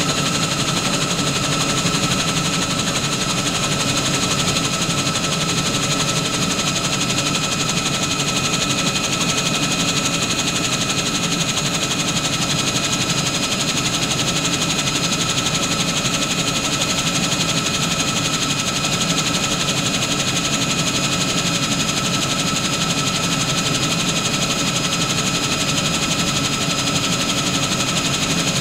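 Bell 47 helicopter in level flight, heard from on board: its piston engine and rotor running in a steady, unchanging drone with a thin high whine over it.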